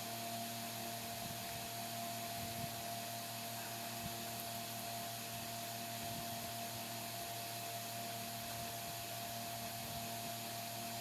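Electric fan running with a steady rushing noise, a constant mid-pitched whine and a low hum underneath; a couple of faint small clicks about two and a half and four seconds in.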